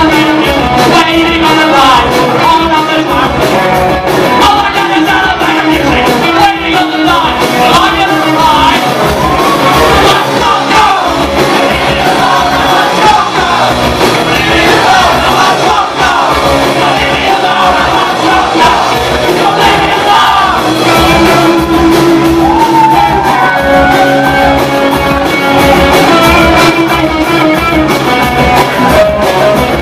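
Rock band playing live and loud: electric guitars and drums under a singer's vocals.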